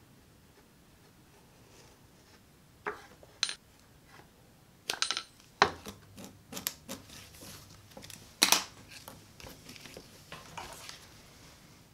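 Small hand tools and leather being handled and set down on a wooden workbench: irregular sharp clicks and clinks, a couple with a brief high metallic ring, the loudest a few seconds before the end.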